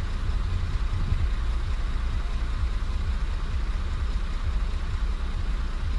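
Warm Audi Q7's 3.0 TDI V6 diesel idling steadily, a low even rumble. The engine is being checked for a knock that is suspected to come from a timing-chain tensioner.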